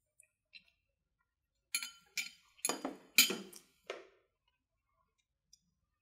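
Eating sounds from people tasting cake with metal forks: a cluster of short clicks and clinks between about two and four seconds in, loudest around three seconds, with quiet on either side.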